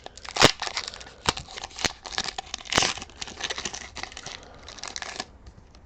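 Foil wrapper of a Pokémon TCG booster pack being crinkled and torn open: a run of sharp, irregular crackles and snaps that dies down about five seconds in.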